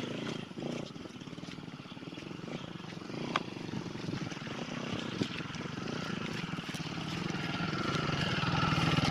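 Dirt bike engine running steadily, getting louder over the last few seconds, with a couple of sharp clicks.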